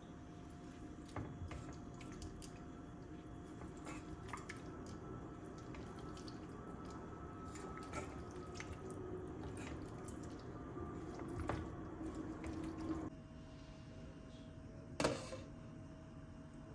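Watery sloshing with light taps from a stainless steel pot of zucchini, carrots and rice being stirred with a silicone spatula; it stops abruptly about 13 seconds in. Near the end, a glass lid is set on the pot with a single sharp clink.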